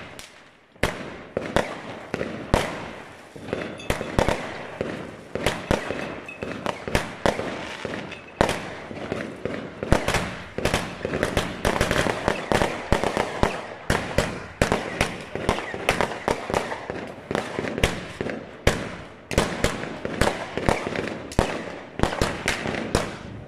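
Consumer firework battery (cake) firing shot after shot: sharp bangs that thicken to two or three a second after about 8 s, with a crackling hiss from the bursting stars between them.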